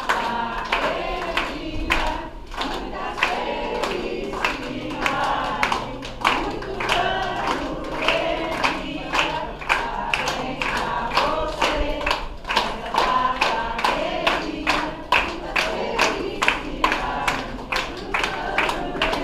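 A group of people singing a birthday song together while clapping along in a steady beat, about two to three claps a second.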